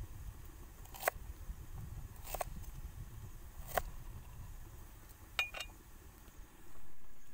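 Large kitchen knife chopping through limes onto a wooden chopping board: three sharp chops about a second and a half apart, then two quick knocks with a short ring about five and a half seconds in.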